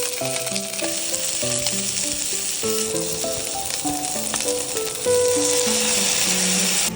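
Food sizzling as it fries in oil in a pan, growing louder about five seconds in, under background music with a simple melody.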